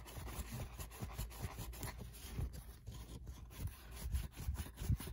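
A small model-train wheel being rubbed clean by hand: a run of faint, irregular short rubbing strokes.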